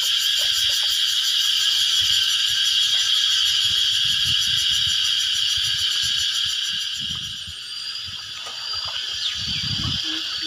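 Steady, high-pitched insect chorus with a fast pulsing shimmer, easing off a little about seven seconds in.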